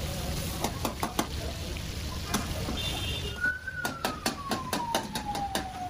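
Steel ladle clanking and scraping against black iron karahi woks over gas burners. About halfway through, quick regular ticks begin, about five a second, together with a tone that falls slowly in pitch.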